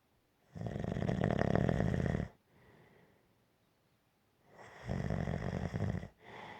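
Gentle snoring: two long snores about four seconds apart, each followed by a softer breath.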